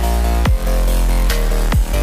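Electronic background music with a heavy bass line and a kick drum.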